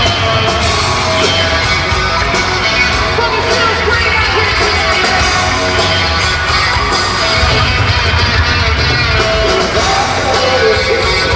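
Live hard rock band playing loudly, with a voice singing over electric guitars, bass and drums.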